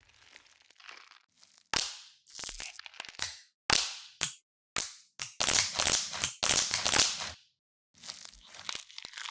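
Close, crisp crackling and crunching, as of something brittle being crushed or crumpled, in separate bursts with short silent gaps between them. The longest and loudest run of crunching comes a little past the middle.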